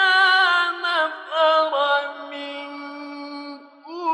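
A man chanting Quran recitation in the melodic, drawn-out mujawwad style: one long phrase of held, ornamented notes that steps down in pitch about a second in and again a little later, then dips briefly near the end as a new phrase begins.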